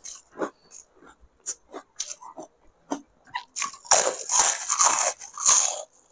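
Crunching bites into a crispy fried pipe fryum: scattered small crunches, then a loud run of dense crunching about four seconds in that lasts some two seconds.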